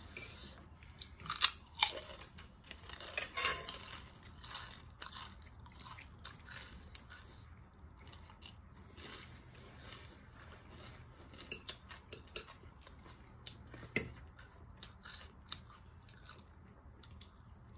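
Close-up chewing and crunching of crunchy cucumber salad eaten by hand, in irregular crisp clicks, loudest in the first two seconds with another sharp crunch later on.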